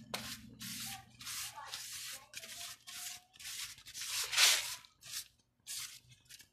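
Quick hand-rubbing strokes, about two a second, as loose soil is wiped off a freshly repotted golden barrel cactus and its plastic tray. The loudest stroke comes about four and a half seconds in.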